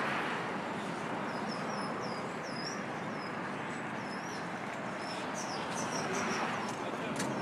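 Steady outdoor background noise, with a run of short, high chirps that rise and fall, repeating from about a second in and coming thicker near the end.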